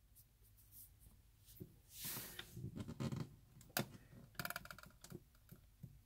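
Quiet handling of a ratchet wrench on the bolts of a battery busbar bracket. There is some rustling about two seconds in, then a sharp click, then a quick run of ratchet clicks a little after the middle, as a nut is snugged down.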